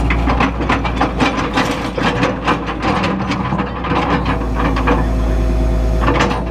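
Excavator's diesel engine running steadily, with a rapid run of clattering knocks and clanks from the machine at work, which ease off about five seconds in and return briefly near the end.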